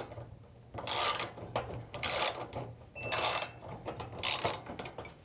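Ratcheting torque wrench tightening a bolt and nut: four short ratchet strokes, about one a second.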